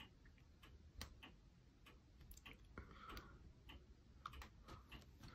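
Faint, irregular small clicks and ticks as tiny metal model ladders are cut free from their sheet.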